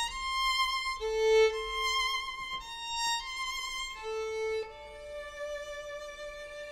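Two violins bowing held, overlapping notes that change pitch every second or so. Just before five seconds in, one lower note is held long.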